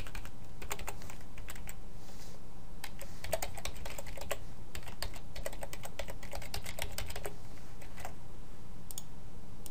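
Typing on a computer keyboard: irregular runs of key clicks, thinning out near the end, over a steady low background hum.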